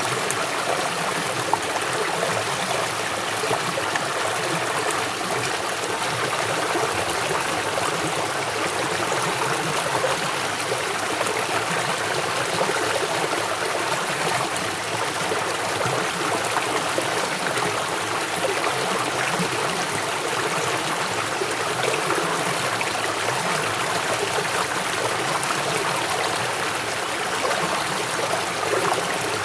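River water flowing fast over rocks: a steady, even rushing with bubbling and trickling.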